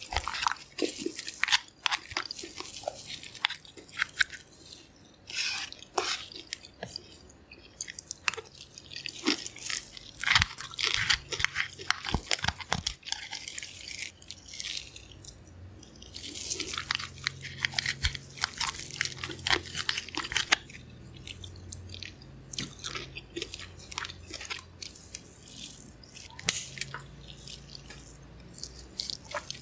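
Close-up eating sounds of sauced crab: the shell cracked and pulled apart by hand with wet crackling and squishing, then biting and chewing.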